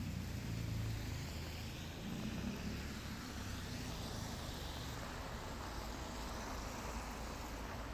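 Steady rain hiss, with a passing car's engine rumble fading away over the first second or two.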